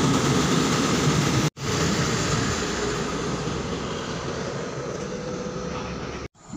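A passenger train rumbling past along the platform, the noise easing off as it moves away. It is broken by two short silences, one about a second and a half in and one near the end.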